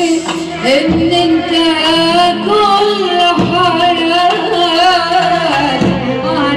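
Live Middle Eastern music played through a PA: a woman sings a long, wavering, ornamented melody, backed by hand-held frame drums and a band.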